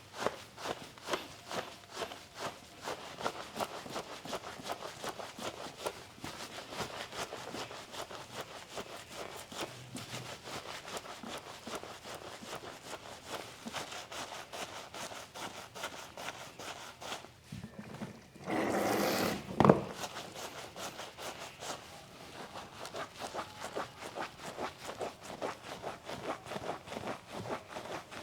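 Hands rubbing and scraping in quick repeated strokes during a spa massage, with a brief louder rush of noise about two-thirds of the way through that ends in a sharp knock.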